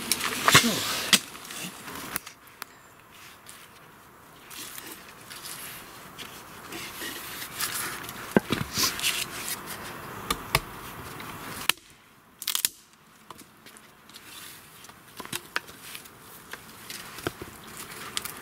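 A hatchet striking and cutting into a thin stick resting on a log: irregular sharp knocks with quieter scraping between. The first two seconds are louder, with scraping and knocks.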